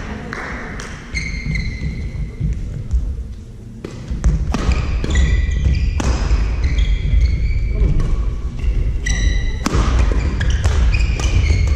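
Badminton rally in a sports hall: court shoes squeak on the floor again and again among sharp racket-on-shuttlecock hits. A low rumble sets in about four seconds in.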